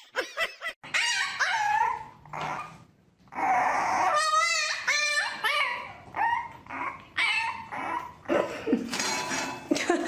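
Dogs whining and yipping in a string of high, wavering cries, with a short pause about three seconds in.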